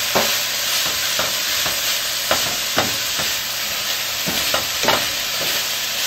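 Sliced peppers and onions sizzling in olive oil in a stainless steel sauté pan, stirred with a wooden spatula that knocks and scrapes against the pan at irregular intervals over a steady frying hiss.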